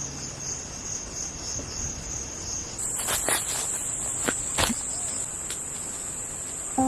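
Insects chirring in a high, steady drone; about three seconds in a louder, higher-pitched insect note takes over. A few sharp clicks sound around the same time.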